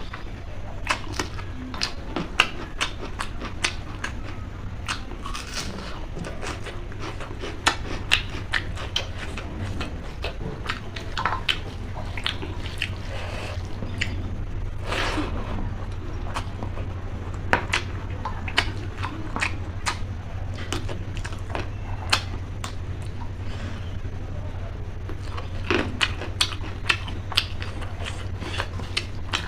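Close-miked eating sounds: chewing with many short, wet mouth clicks and smacks at an irregular pace, over a steady low hum.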